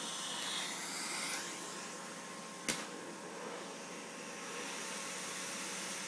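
Canister vacuum cleaner running with a steady hiss and low hum. The hiss wavers in the first second or so. A single sharp knock comes about halfway through.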